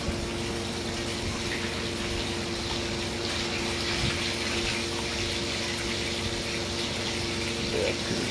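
Steady rushing background noise with a low, even hum underneath.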